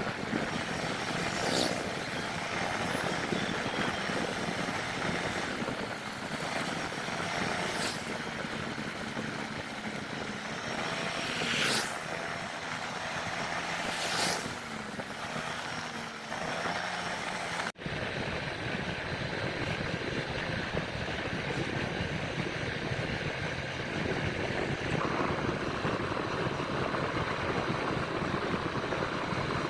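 Honda Click 125i scooter's single-cylinder engine running at road speed under a steady rush of wind and road noise, with a few brief swishes in the first half. The sound breaks off suddenly about two-thirds of the way through and picks up again duller.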